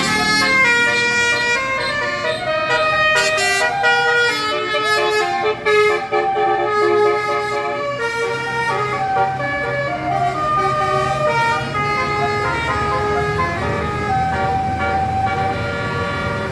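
Bus 'telolet' horn, a multi-tone musical air horn, playing a melody of stepped notes over the low rumble of a running bus engine.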